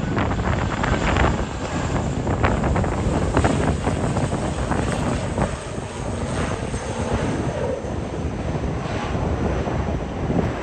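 ATR 72-600 twin turboprop engines and propellers running, mixed with gusty wind rumbling on the microphone.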